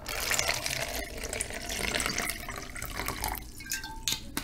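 Water running into a plastic bucket, filling its bottom, easing off about three and a half seconds in, with a couple of light knocks near the end.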